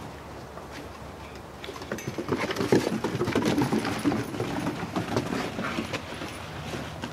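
Puppies' paws and claws scampering and pattering on wooden deck boards as they play, a quick run of clicks and knocks that starts about two seconds in and eases off near the end.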